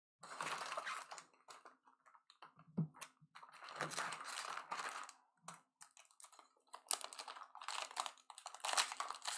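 Foil wrappers of Bowman Draft jumbo card packs crinkling and crackling as hands shift the stacked packs and pick one up to open, in irregular bursts of clicks and rustles.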